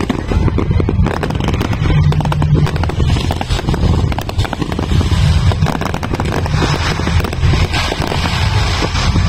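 Fireworks display going off: a dense, continuous crackle of many sharp pops over a steady low background, growing thicker and brighter in the last few seconds.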